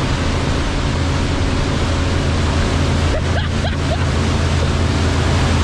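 Churning white water of a boat's wake rushing loudly and steadily past close by, with a low steady drone underneath.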